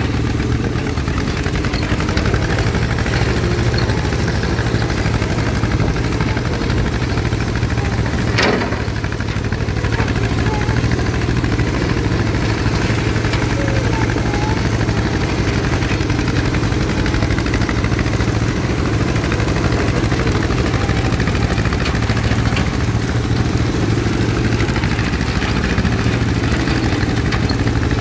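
1953 John Deere 40 tractor's two-cylinder engine running steadily under load while its tractor-mounted rotary cutter mows tall grass. A single sharp knock about eight seconds in.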